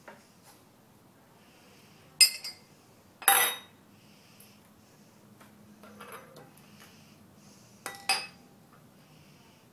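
A clear drinking glass knocking and clinking on a granite countertop: a sharp clink about two seconds in, a louder, longer one a second later, a few soft knocks, and a quick double clink near the end.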